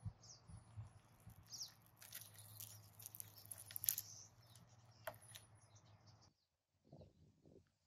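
Dumbbell pressed down onto a mandarin orange, the peel crackling and popping as it splits and the juice squirts out, loudest about four seconds in, with birds chirping in the background. The sound cuts off after about six seconds, and a few soft, low squelches follow.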